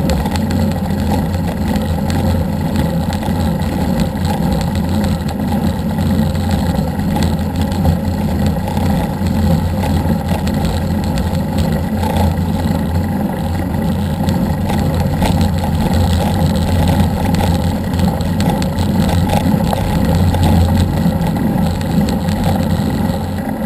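Steady low rumble of a vehicle driving along a road, engine and road noise mixed with wind on the camera's microphone.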